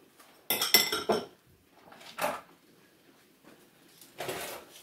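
Metal kitchenware clattering on a kitchen counter: a quick run of clanks with a brief metallic ring about half a second to a second in, then a few softer knocks.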